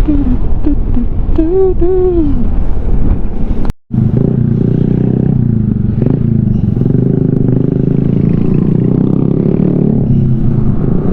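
Yamaha XMAX scooter ridden on the road, heard from the rider with wind rushing over the microphone; just under four seconds in the sound cuts out for a moment, then carries on as a steady engine and road drone with less wind.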